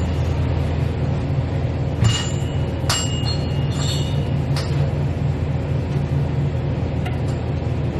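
Steady low background hum with a few light clinks, about two, three and four and a half seconds in.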